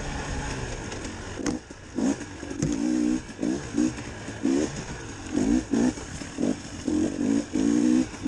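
A 2019 KTM 300 XC-W TPI's single-cylinder two-stroke engine revving in short bursts, about one to two a second, as the throttle is blipped on and off through tight trail turns. It eases off briefly with a couple of sharp knocks about a second and a half in.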